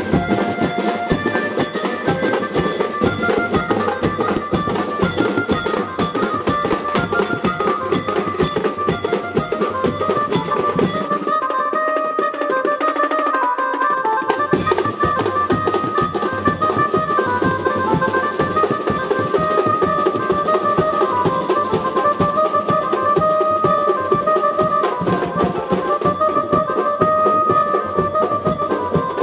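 Live procession band music: a group of hand-held drums and a drum kit beat a fast, steady rhythm under a keyboard melody played through horn loudspeakers. Near the middle the drums drop out for about three seconds, leaving the melody alone, then come back in.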